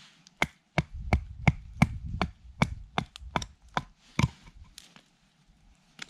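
Splitting kindling by batoning: a wooden baton striking the spine of a knife driven down through an upright stick of firewood, about a dozen sharp wooden knocks at roughly three a second, stopping a little past the middle.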